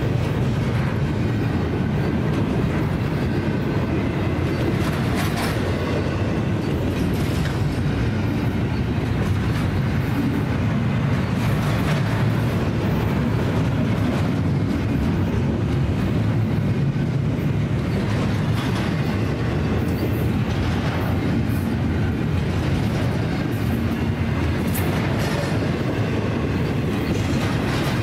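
Double-stack intermodal freight train's container-laden well cars rolling past at close range: a steady rumble of steel wheels on rail, with scattered sharper clicks.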